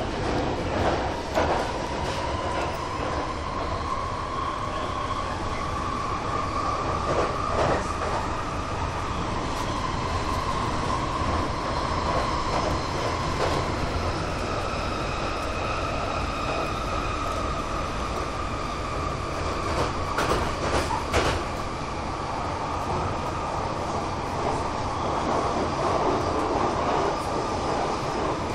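London Underground train running, heard from inside the carriage: a steady rumble with a high whine that slowly drifts up and down, and a few sharp clacks from the track, two of them close together about twenty seconds in.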